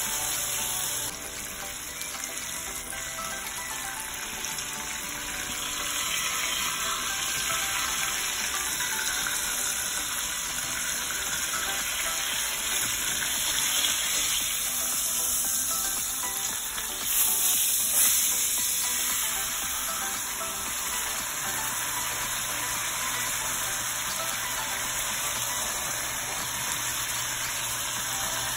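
Chuck roast searing in hot oil in an enameled cast-iron Dutch oven, a steady sizzle that briefly grows louder a little past halfway through.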